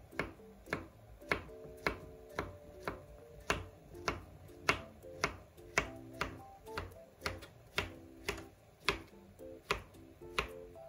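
Kitchen knife slicing a peeled banana into rounds, each cut ending in a sharp tap on a plastic cutting board, about two taps a second, over soft background music.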